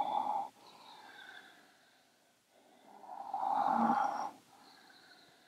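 A woman breathing strongly through her nose, pacing her breath with cat and cow spine movements: one breath ends about half a second in, and a louder, longer one comes about three seconds in.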